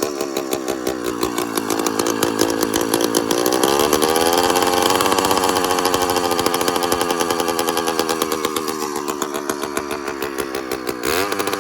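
100cc two-stroke motorized-bicycle engine running loudly, its revs climbing about four seconds in and then sinking slowly, with a brief rise near the end. The RPM keeps fluctuating by itself, and the owner is not sure why.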